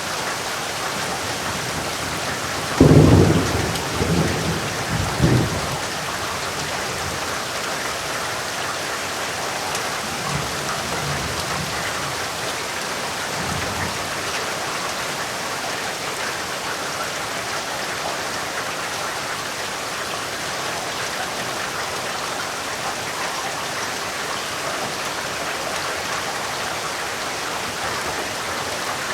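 Heavy rain falling steadily. A loud clap of thunder comes about three seconds in and rolls on for a couple of seconds. Fainter rumbles of thunder follow around ten and fourteen seconds in.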